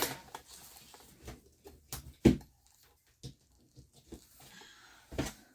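Scattered clicks and knocks from handling an electric nail drill's power cord and plastic parts, with one sharp knock a little over two seconds in and another near the end. The drill motor is not running.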